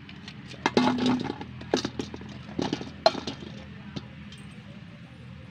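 Lemons tipped from a steel plate into a metal pot, clattering and knocking against the metal in several quick bursts through the first three seconds, with a last knock about four seconds in. A steady low hum runs underneath.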